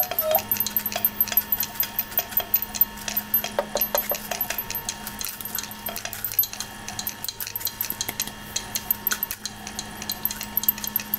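Palette knife dabbing and tapping oil paint onto a stretched canvas: a run of irregular light taps and clicks, over a steady low hum.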